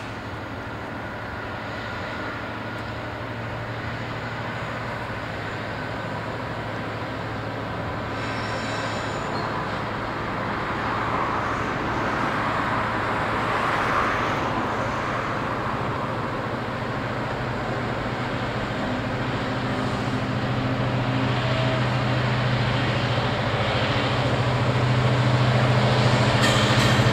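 Class 66 diesel-electric locomotive hauling a container freight train: a steady diesel engine drone that grows louder as the train approaches.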